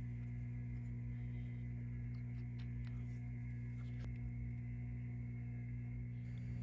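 Steady low hum with a few faint, light clicks over it.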